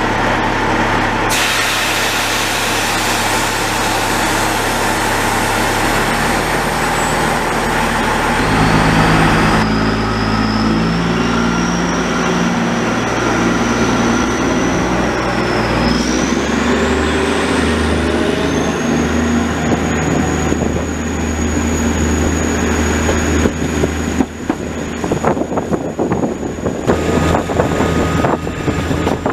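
Narrow-gauge diesel locomotive running at a standstill, then pulling away: its engine note steps up several times with a rising whine as it gathers speed, over a loud hiss in the first ten seconds. In the last few seconds the moving train rattles and clicks over the track.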